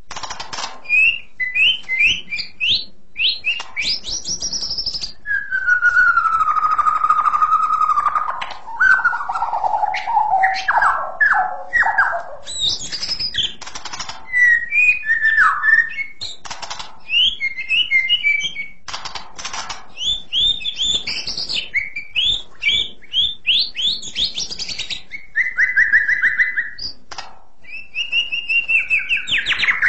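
White-rumped shama singing a long, varied song of clear, high whistled phrases. About five seconds in comes a long whistle sliding downward, then a falling series of notes, and near the end a held note.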